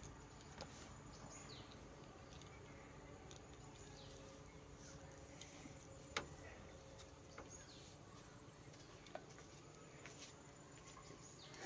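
Near silence: faint outdoor ambience with a few soft clicks, the clearest about six seconds in.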